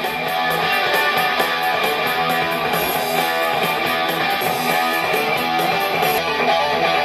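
Guitar-driven rock music playing from a cassette through the built-in speakers of a Philips Magnavox portable cassette boombox. It grows louder in the first moment, then holds steady. The deck is playing the tape normally after its playhead, capstan and pinch roller were cleaned.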